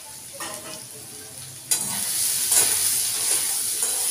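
Diced potatoes and onion frying in oil in a kadai. The sizzling jumps suddenly louder about a second and a half in, and a metal spatula stirs and scrapes the pan a few times.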